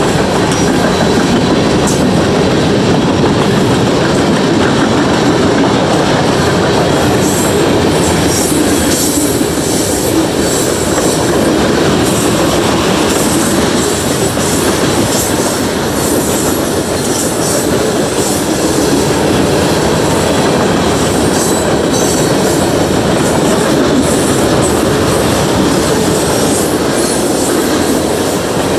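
CSX freight train rolling past at a grade crossing, a loud steady rumble of wheels on rail with rapid clicking and clatter and some wheel squeal.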